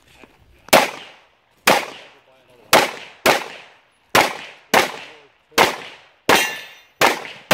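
A handgun fired about nine times in quick succession, the shots about half a second to a second apart, each trailing off in a short echo.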